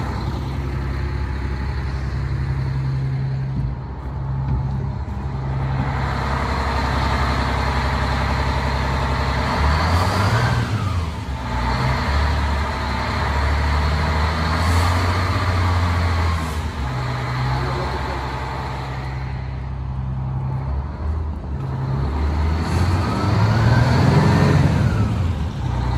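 1989 Crown Super Coach's diesel engine running, revved up and back down by hand at the throttle twice: once about ten seconds in and again near the end.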